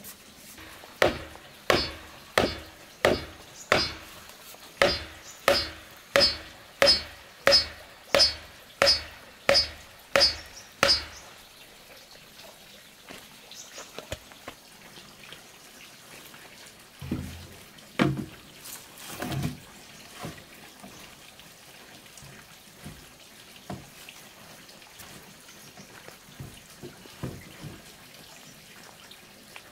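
Hammer driving a bamboo stake into the ground: about sixteen even blows, roughly one and a half a second, each ringing briefly, stopping about eleven seconds in. A few heavier thumps follow a little past the middle, then only faint scattered clicks.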